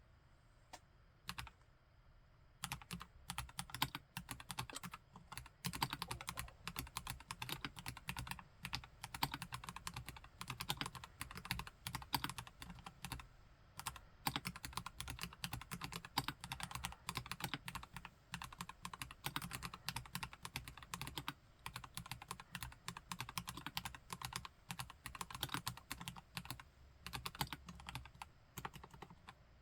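Typing on a KLC Nori plastic-case mechanical keyboard with Gateron Yellow Pro V2 linear switches: a couple of single keystrokes, then steady fast typing from about three seconds in.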